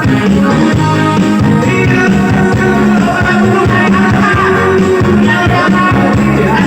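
A song with singing and a band, played loud through a four-way speaker system in a sound check, with a steady heavy bass beat.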